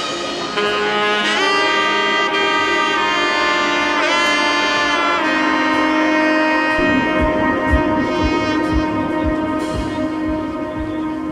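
Background music: a held, sliding melody line, joined by a soft steady beat about two-thirds of the way through.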